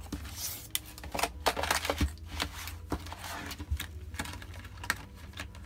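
Clear plastic craft packaging being handled and set on a wooden tabletop: scattered clicks and taps, with a short crinkle in the first second.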